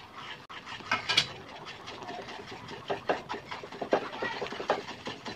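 Spatula stirring and scraping a thick jackfruit, jaggery and rice-flour mixture in a pan, in quick, irregular strokes.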